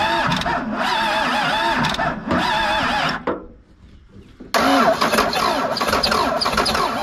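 Starter cranking the 1991 Dodge Ram 250's first-gen Cummins 12-valve turbo diesel inline-six without it firing, the pitch dipping and recovering in a steady rhythm. The cranking stops about three seconds in and starts again abruptly after a pause of over a second; the crew later judge the battery too weak to crank it properly.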